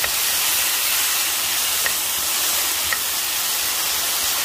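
Long beans, squash chunks and sliced shallots sizzling as they sauté in a hot frying pan: a steady hiss, with a couple of faint clicks about two and three seconds in.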